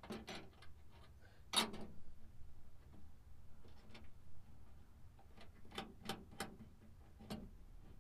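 Faint, irregular clicks and taps of a metal flag-mount clamp and its nut and bolt being handled and fastened around a PVC pipe by hand, with a sharper click about one and a half seconds in.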